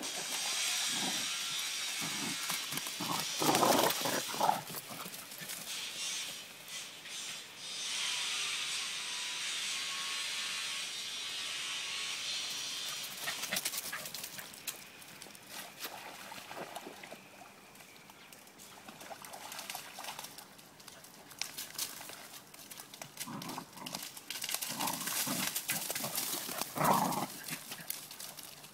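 Dogs play-fighting, with bursts of growling about three to four seconds in and again near the end, over a steady high hiss.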